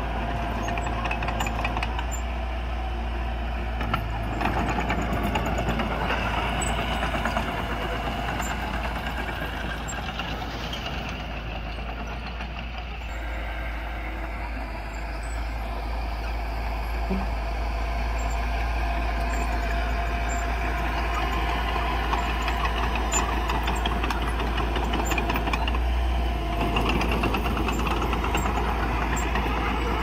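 Small Mitsubishi crawler bulldozer's diesel engine running steadily under load as the dozer pushes loose soil.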